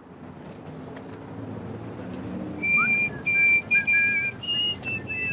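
Someone whistling a tune in short held notes, starting about two and a half seconds in, with two pitches sounding at once.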